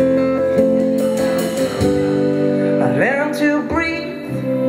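A live band playing a pop song in a gap between sung lines: guitar and held chords over a bass line, with two notes sliding up in pitch about halfway through.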